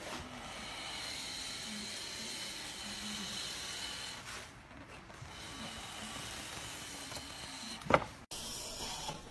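Japanese wooden hand plane (kanna) shaving a long, thin continuous curl off a wooden board: a steady hiss of the blade cutting the wood, dipping briefly a little after halfway and then going on. Near the end there is one sharp knock, followed by an abrupt cut-off.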